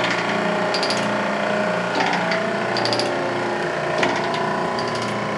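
EFM coal stoker's motor and gearbox drive running steadily, with a sharp tick about once a second. The owners place the noise between the gearbox and the motor, probably at the coupler.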